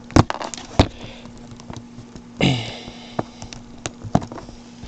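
Small clicks and taps of a plastic action figure being handled as one of its removable hands is pulled off to free it from the handcuffs. Two sharp clicks in the first second are the loudest, a few fainter ones follow, and a steady low hum runs underneath.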